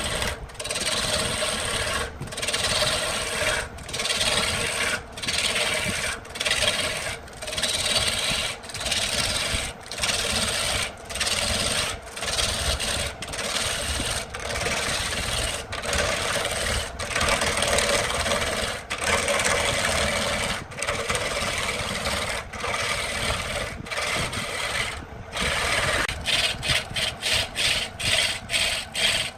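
Turning tool cutting a cedar blank spinning on a wood lathe, a rasping scrape of steel on wood. The scrape breaks off briefly about once a second, and near the end the breaks come quicker, several a second.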